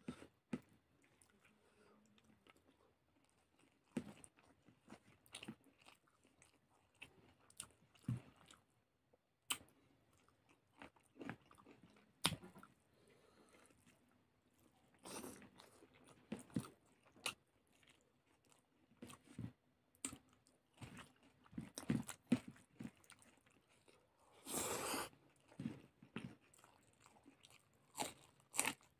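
A person eating close to the microphone: quiet chewing broken by scattered short crunches and clicks, as the hand mixes rice on the plate and brings it to the mouth. Near the end comes one longer, noisier sound of about a second.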